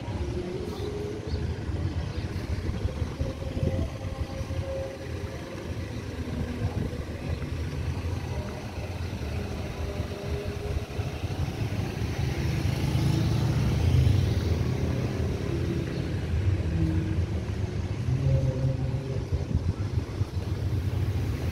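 Street traffic: motor vehicles running with a steady low rumble, one passing close about 13 seconds in.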